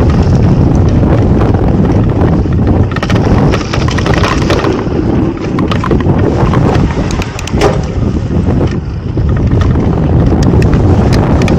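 Wind buffeting the action camera's microphone while a mountain bike rolls over a dry dirt singletrack, with tyre crunch and scattered clicks and rattles from the bike over bumps.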